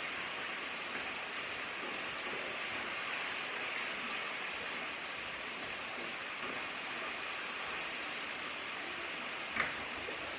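Chicken sizzling in a cast-iron skillet as it is stirred, a steady hiss, with one sharp click near the end.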